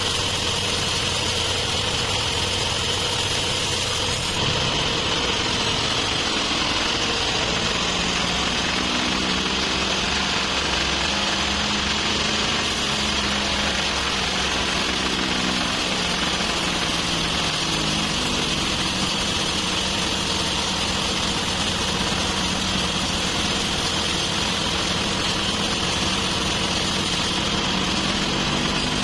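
Sawmill band saw running and cutting lengthwise through a large trembesi (rain tree) log. A steady high whine sits over a lower machine hum whose pitch drifts slowly.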